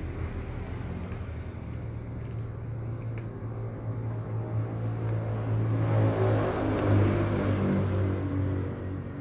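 A steady low mechanical rumble that swells louder from about six to eight seconds in, over faint scattered clicks of cats crunching dry kibble.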